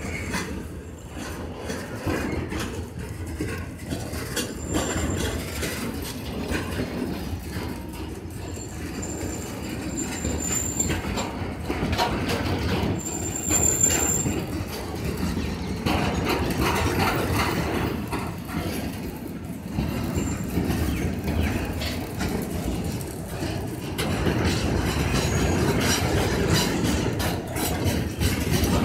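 Goods train of BTPN petroleum tank wagons rolling past, wheels clattering over the rail joints. A few brief, high wheel squeals come near the middle.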